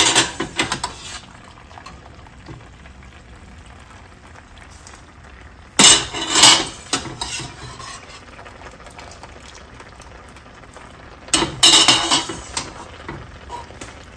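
Metal spoon scraping and clanking against a stainless steel pot as cooked penne is scooped out and dropped into a skillet, in three clattering bursts about five seconds apart, with a low simmering sizzle from the pan between them.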